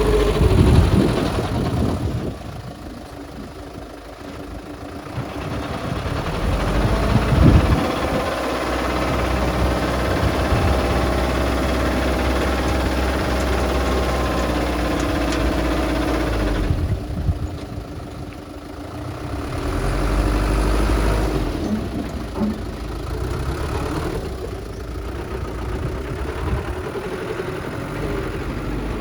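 Heavy diesel construction machinery, dump truck and bulldozer engines, running and revving up and down, with louder surges about a second in and again around seven seconds in.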